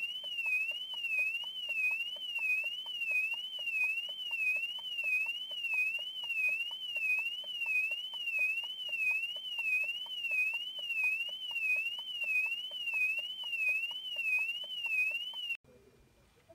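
Car alarm siren wailing: an electronic tone sweeping up and down about one and a half times a second, cutting off suddenly near the end.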